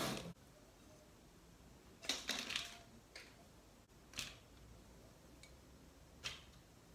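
Brief rustles and scrapes of potting soil and pothos leaves being handled: a longer one about two seconds in, then two short ones near four and six seconds.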